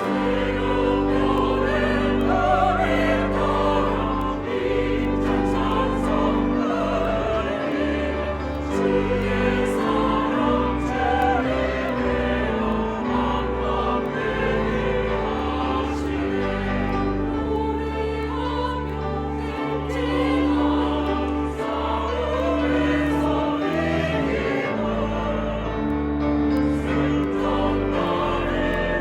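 Church choir singing a hymn with instrumental accompaniment, steady held bass notes under the voices.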